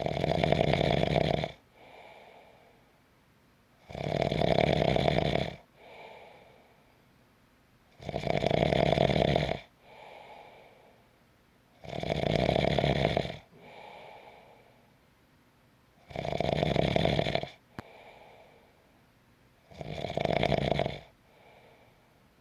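A person snoring in a slow, even rhythm: six loud snores about four seconds apart, each about a second and a half long and followed by a softer, shorter breath out.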